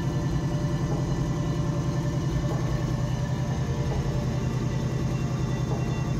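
Turbocharged car engine running on E85 under a MicroSquirt standalone ECU, idling steadily with an even, rapid exhaust pulse.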